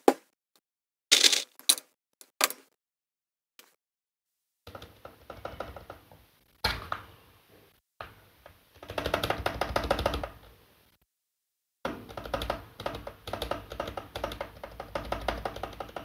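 A few sharp knocks, then runs of rapid, repeated presses on a stabilized keyboard key fitted with KTT Kang White V3 linear switches: the stabilizer is being tested for rattle and smoothness.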